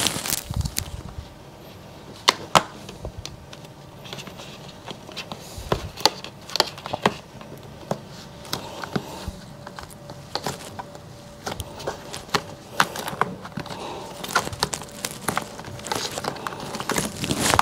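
Handling noise as flexible sealing tape is pressed and kneaded around a corrugated plastic cable conduit on a foil-faced vapour barrier: scattered sharp clicks and crackles of plastic and film over soft rustling, coming irregularly throughout.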